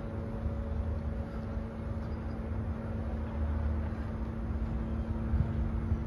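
Steady low mechanical rumble with a constant hum underneath, unchanging throughout.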